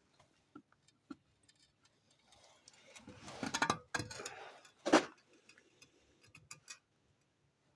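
Metal parts being handled: scattered small clicks and clinks, a busier stretch of clattering about three seconds in, and one sharper knock about five seconds in.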